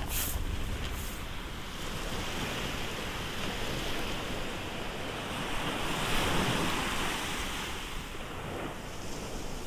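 Small sea waves breaking and washing up a sandy beach, the wash swelling to its loudest about six seconds in and then easing off, with wind rumbling on the microphone. A couple of brief sharp clicks sound in the first second.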